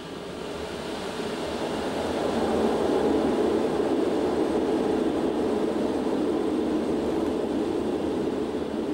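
Concorde accelerating down the runway on its takeoff roll, heard from inside the flight deck: its four Olympus 593 turbojets at full takeoff power with reheat, with runway rumble, making a loud steady rushing noise. The noise builds over the first three seconds as the aircraft picks up speed, then holds.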